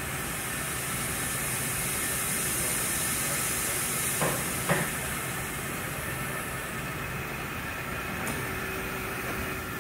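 Steady machine-shop background noise, a hum with a high hiss, broken by two sharp knocks about half a second apart near the middle.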